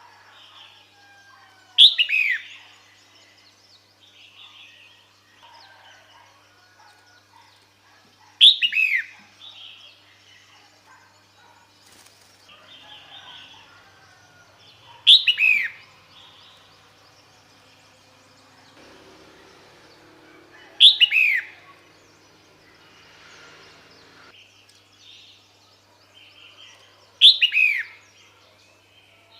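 Female red-whiskered bulbul calling: five short, loud calls at an even pace about six seconds apart, each a quick cluster of falling notes. Faint chirping from other birds lies underneath.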